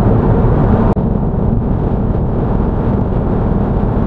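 Steady road noise inside a car cabin at motorway speed: tyres on the road and engine running as one even low rumble. It is interrupted by a brief dropout about a second in.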